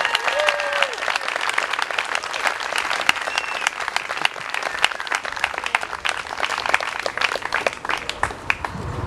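Audience applauding, with a voice calling out briefly at the start; the clapping thins out near the end.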